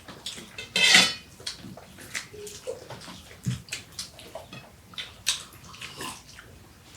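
People eating a rice meal with shak and prawns by hand, with wet chewing, lip smacks and small clicks. A louder burst comes about a second in.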